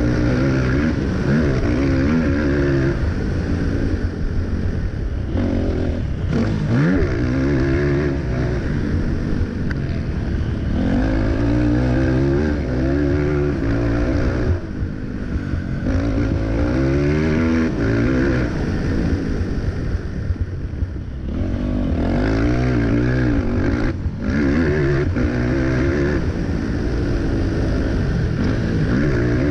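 Racing ATV (quad) engine heard up close from the machine, revving hard and falling off again and again as the throttle is worked through the corners and straights of a motocross track, with brief throttle-offs every few seconds.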